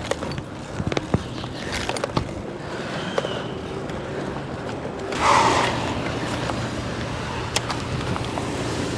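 Small sharp clicks and handling noises from fishing tackle as a lure is swapped on the line, clustered in the first couple of seconds, over a steady low hum. A brief rushing swell a little past halfway.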